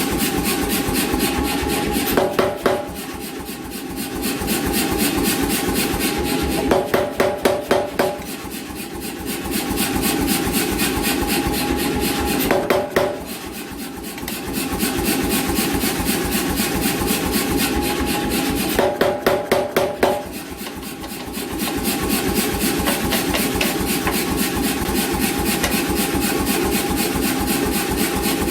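88 lb C41 self-contained air power hammer running in a fast, steady rhythm of blows. Four short runs of sharper, ringing strikes stand out, spaced several seconds apart.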